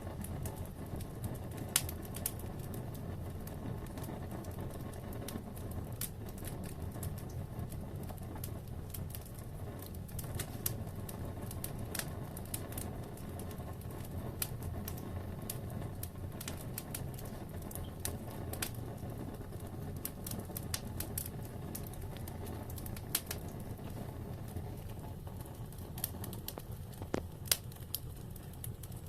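Wood fire burning in a fireplace: a steady low rumble of flames with scattered, irregular crackles and pops of the burning wood, a few of them louder.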